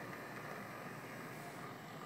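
HO scale brass EMD F3 A and B model diesel locomotives running along the track: a steady whir of the motor and rolling wheels.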